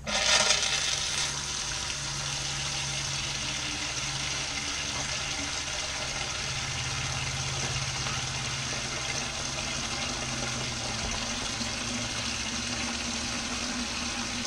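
Water turned up hard, surging for about a second and then running steadily as it fills a mock-up transmission cooler made of clear plastic tubes.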